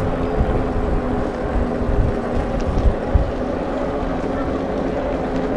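Riding noise from a bicycle rolling along a paved path: wind buffeting the microphone as an uneven low rumble, over a steady hum.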